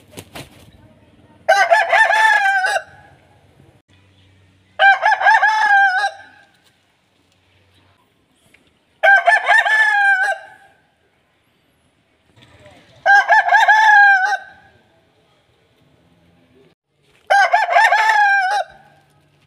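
Aseel rooster crowing five times, each crow about a second and a half long, with pauses of about three seconds between them.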